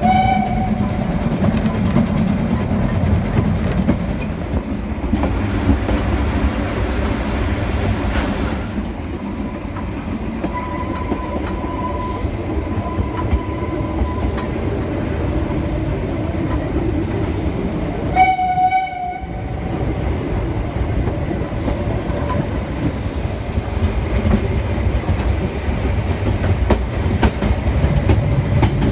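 Narrow-gauge steam train running, with a steady rumble and clatter of wheels on the rails. Its whistle sounds briefly at the very start and again for about a second some two-thirds of the way through. The sound changes abruptly in a few places where the recording is cut.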